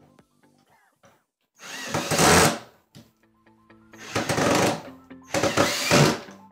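B&G ULV fogger's blower motor switched on in three short runs of about a second each, each swelling and then cutting off, a test run of the replacement motor. Light background music with plucked notes plays underneath.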